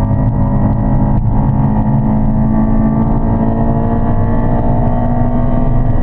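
Honda Civic EP3's four-cylinder engine running hard at a steady, high pitch on track. There is a single brief click about a second in.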